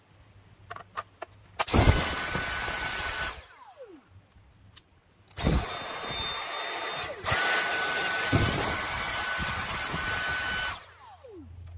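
Dyson V7/V8 cordless stick vacuum running in two trigger bursts, with a steady high whistle from its motor. Each burst ends with a falling whine as the motor spins down. The second burst starts quieter and steps up in level about two seconds in as it is switched between its normal and Max power modes. A few light clicks come first.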